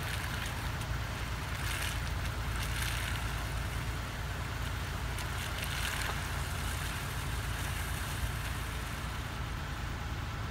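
Car engine and road rumble heard from inside a slowly moving car: a steady low drone.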